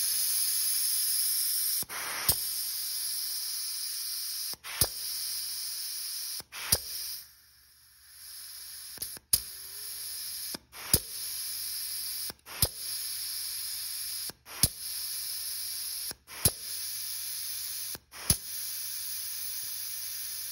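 Shop air hissing through a GM 4L60E torque converter lockup solenoid, cut off with a sharp click each time the solenoid is energized, about every two seconds, and once held shut for about a second and a half near the middle. The air shutting off when the solenoid closes shows that the solenoid is working.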